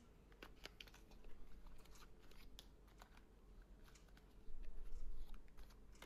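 A small cardboard product box and its packaging being opened and handled by hand: scattered light clicks and taps, then a louder stretch of rustling and crinkling a little over a second before the end.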